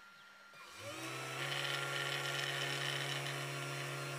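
CNC 3018 Pro's spindle motor, fitted with a 1 mm drill bit, spinning up about three-quarters of a second in with a short rise in pitch, then running steadily with a hum and a higher whine.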